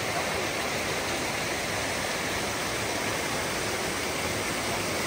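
Stream water rushing over rocks and small cascades, a steady even rush.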